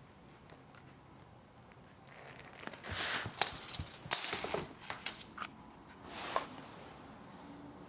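Thin plastic bag crinkling and rustling in irregular bursts as a cat shifts about in it. It starts about two seconds in, with a last burst about six seconds in.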